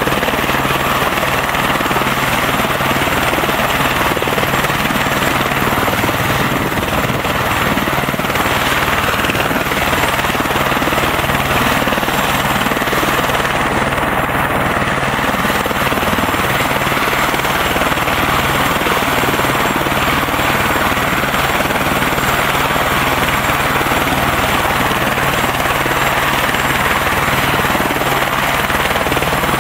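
Turbine helicopter (a single-engine AS350 A-Star) running on the ground with its main rotor turning, a loud, steady whine and rotor beat, with the rotor wash rushing across the microphone.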